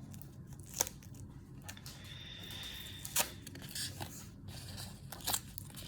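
Plastic blind-bag packet being handled and pulled at to open it: scattered crinkles and small clicks, with a longer stretch of tearing noise about two seconds in.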